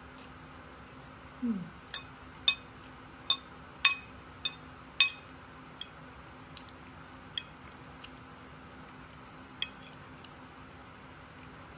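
Metal fork clinking against a ceramic plate while picking up pasta: a string of sharp, ringing clinks, closely spaced in the first half, then sparser. Just before the first clink comes a short low hum that falls in pitch.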